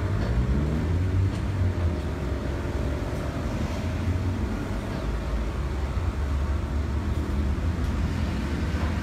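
Steady low drone of running ventilation machinery, with a faint hum gliding upward at the start.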